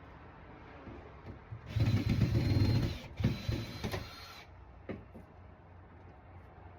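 Small electric motor running in two bursts of just over a second each with a steady high whine, then a single sharp knock.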